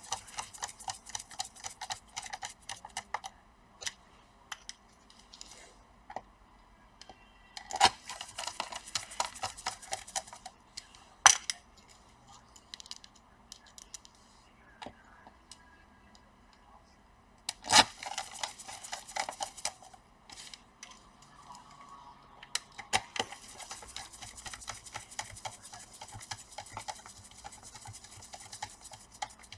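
Hands working on a laptop under repair: runs of small rapid clicks from a screwdriver driving screws and from plastic parts being handled, with sharp louder clacks of plastic or metal parts set down about 8, 11 and 18 seconds in.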